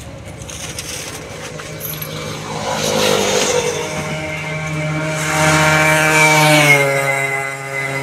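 A motor vehicle passing on the road. Its engine note rises in pitch as it speeds up, is loudest with tyre hiss about five to seven seconds in, then holds a steady pitch.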